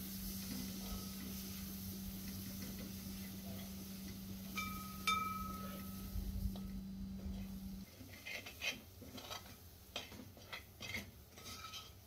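Spoon stirring a thick onion-tomato masala in a pot, with scrapes and clicks against the pot that come thicker in the last few seconds and two short ringing clinks near the middle. A steady low hum stops about eight seconds in.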